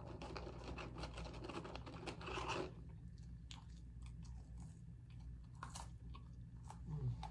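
A person chewing and biting fast food close to the microphone. The mouth noises are dense for the first few seconds, then thin out to scattered smacks and clicks.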